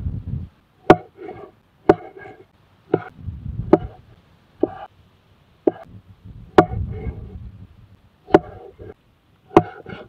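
Cleaver chopping a tomato on a thick wooden plank: about nine sharp blade strikes on the wood, roughly one a second.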